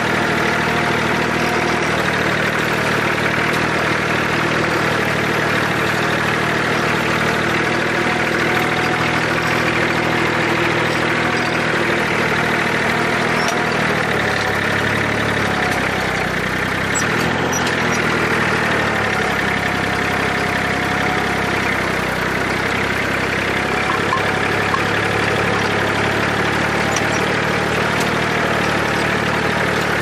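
IMT 539 tractor's three-cylinder diesel engine running steadily while pulling a plough. Its note dips and shifts about halfway through, then settles again.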